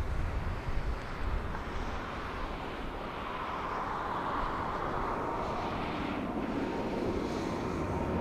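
Boeing 787-8 airliner's Rolls-Royce Trent 1000 turbofans at take-off thrust during the climb-out, a broad jet noise growing louder as it nears overhead. A steady fan whine comes in about four seconds in.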